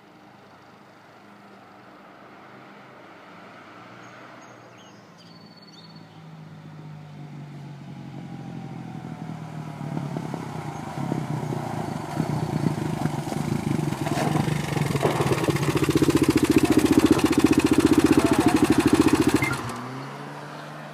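A vehicle's engine approaching and growing steadily louder. It runs close by for a few seconds with a fast, even clicking through its sound, then drops away suddenly near the end. This clicking is the noise the owner is asking about.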